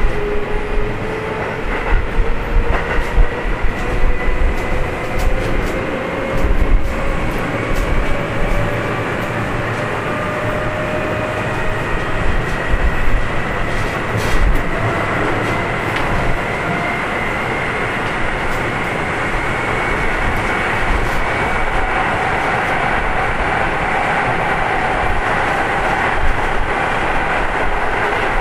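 Keio 7000 series field-chopper electric train heard from inside the car: the traction motors and gears whine and rise slowly in pitch as the train picks up speed, over a steady rumble of wheels on rail. Wheels click over rail joints in the first few seconds.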